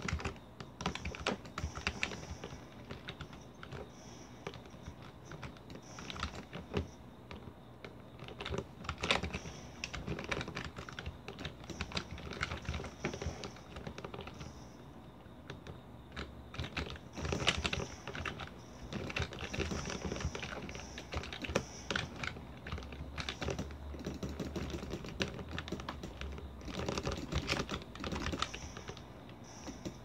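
Typing on a computer keyboard: bursts of quick, irregular key clicks with short pauses, easing off briefly about halfway through, over a faint steady low hum.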